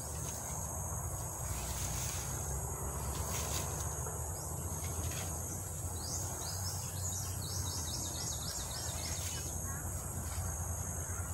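Outdoor insect chorus: a steady, high-pitched buzzing trill of crickets or similar insects. About six seconds in, a bird gives a quick run of short chirps lasting a few seconds, over a steady low rumble and a few brief rustles.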